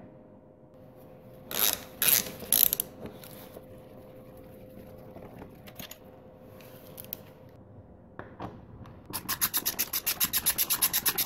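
Workshop hand-tool work: a few short scraping noises, then near the end a fast, even run of clicks, about nine a second, like a socket ratchet being spun to back out a bolt on the motorcycle.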